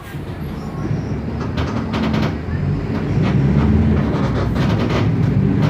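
Mercedes-Benz OF 1519 bus's diesel engine pulling away under acceleration, getting steadily louder. The bodywork rattles throughout.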